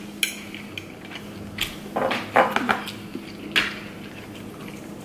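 Metal forks clinking and scraping against food trays a few times, with a faint steady hum underneath.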